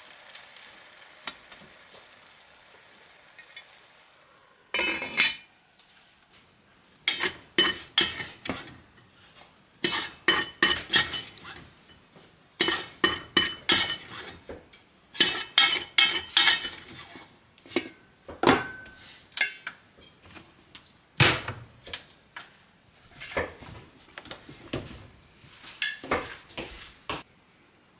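A pot simmering with a faint hiss for the first few seconds. From about five seconds in, repeated clinks and scrapes of a utensil against a rice cooker's metal inner pot and a stainless-steel bowl as cooked rice is scooped out, in quick clusters with short pauses.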